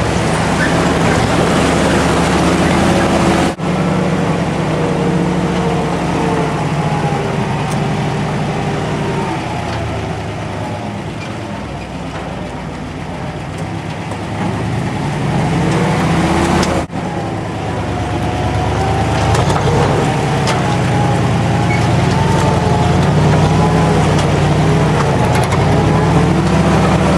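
A 1950s Ford 4x4 pickup's engine running steadily as the truck crawls along a rough, rocky trail, its note rising and falling with the throttle. The sound breaks off abruptly twice, about 3.5 and 17 seconds in.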